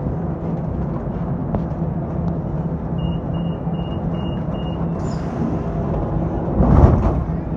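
Lisbon Metro train standing at a station platform with its equipment humming steadily. About three seconds in come five short high beeps of the door-closing warning, then a brief hiss, and near the end a heavy thud as the doors shut.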